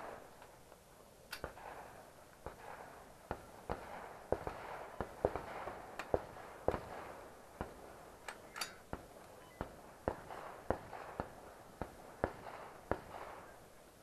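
A rapid string of rifle shots during an IPSC rifle stage, fired at uneven intervals of about one to two a second as the shooter works through the targets.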